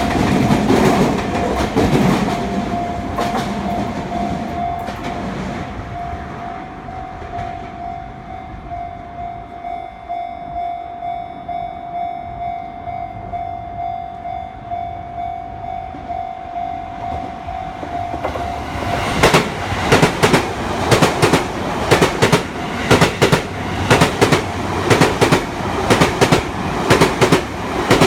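Japanese level-crossing alarm ringing in a steady repeating tone while a passing Sotetsu electric train's rumble fades. About nineteen seconds in, another Sotetsu electric train passes close by, its wheels clattering loudly and rhythmically over the rail joints.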